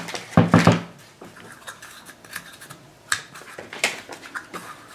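Small plastic toy figures clicking and knocking against a tabletop as they are picked up and set down, with a cluster of louder knocks in the first second and a few sparse clicks after.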